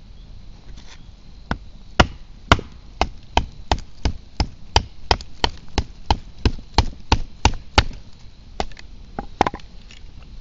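Kindling being split at a campfire: a steady series of about twenty sharp wooden knocks, roughly three a second, as a blade is driven down through a stick of firewood. The strikes stop about a second before the end.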